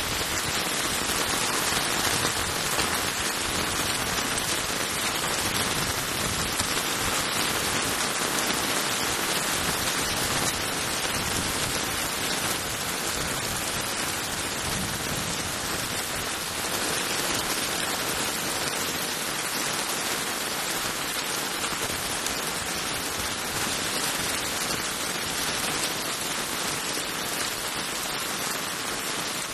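Heavy cloudburst rain pouring onto a flooded street and pavement, a dense, even hiss that eases a little in the second half.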